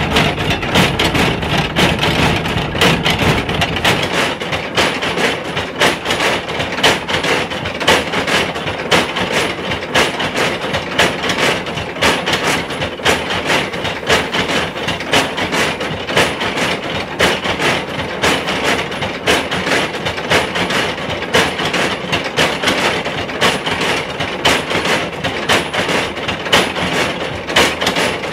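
Motor-driven multi-pestle stamp mill pounding red pepper in its mortars: a steady, rapid run of knocks as the pestles rise and drop in turn, with a low rumble under the first few seconds that then drops away.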